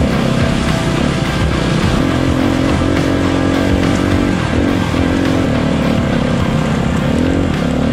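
Honda CRF250RX single-cylinder four-stroke trail bike engine running under way off-road, its note rising and falling with the throttle as the rider works along the trail.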